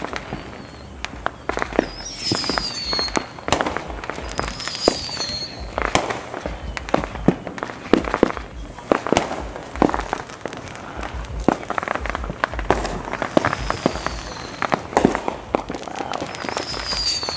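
Fireworks going off all around in an irregular run of sharp bangs and pops, with low rumbling booms under them. Now and then a high whistle falls in pitch, four times in all.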